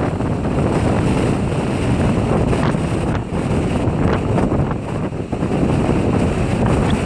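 Gale-force wind, gusting around 40 mph and more, buffeting the microphone: a loud, continuous low rumble that swells and dips with the gusts.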